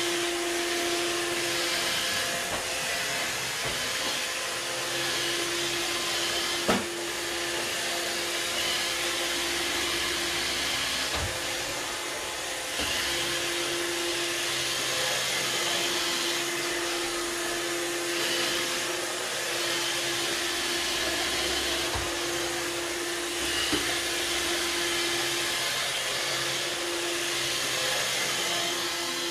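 Robot vacuum (iRobot Roomba) running across a wooden floor: a steady whirring hum with a whine that fades in and out, and hiss. There is a sharp knock about seven seconds in and a few fainter knocks later.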